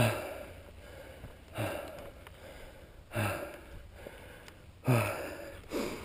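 A man's heavy, gasping breathing, five loud breaths about every one and a half seconds, each dropping in pitch: he is out of breath from pushing his mountain bike up a steep climb.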